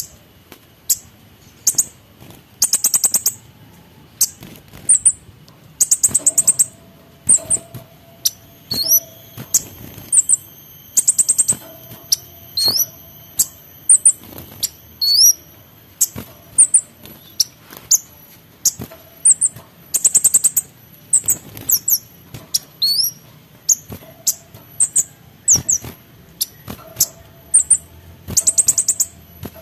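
Male kemade songbird singing energetically: short, rapid, high rattling trills alternating with quick rising whistled notes, repeated about once a second.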